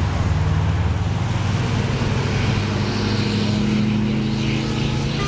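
Pickup trucks and cars passing on a multi-lane highway: a steady low engine drone over road noise, the drone shifting slightly in pitch as vehicles go by.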